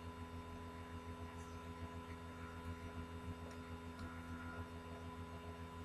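Faint steady electrical hum with a few faint ticks: the recording's room tone between speech.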